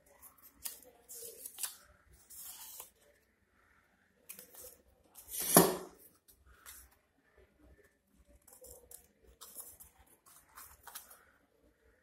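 Scissors cutting red craft paper in a series of short snips, with paper rustling between them. A single sharper click about five and a half seconds in is the loudest sound.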